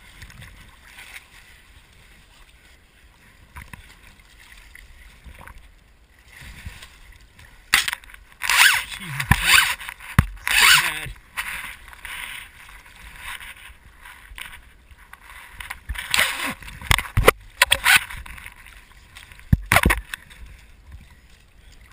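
Water sloshing and splashing right at a camera at the water's surface while a swimmer handles a wet inflatable kite and its tangled lines, in several loud bursts in the middle and near the end.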